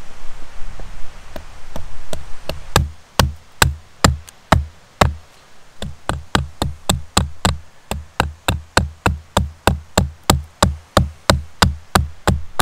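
Small hatchet striking and shaving a hardwood fork blank propped on a log chopping block. The sharp wooden knocks start sparse, settle to about two a second, then quicken to a steady run of about three a second.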